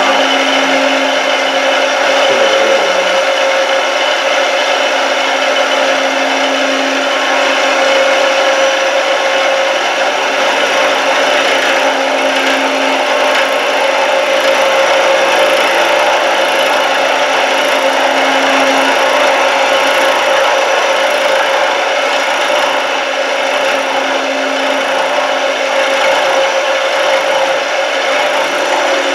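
25 mm APMT 1003 indexable end mill taking a light 0.5 mm finishing pass at slow feed across a steel block on a CNC mill. Steady, even cutting noise throughout, with a steady tone underneath.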